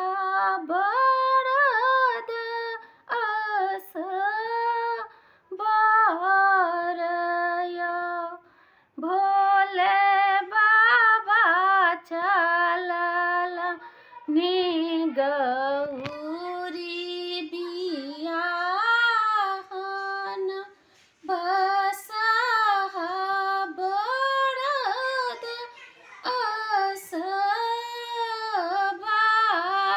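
A woman singing a Maithili Maheshwani (a devotional wedding song to Shiva) unaccompanied, in long held, wavering phrases with short breaks for breath between them.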